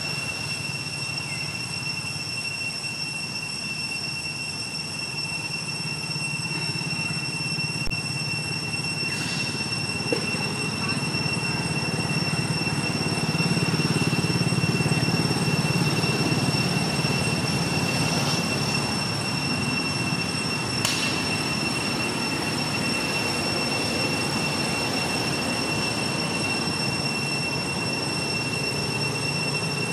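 Steady outdoor background noise: a low rumble that swells about halfway through, with a continuous high-pitched whine over it.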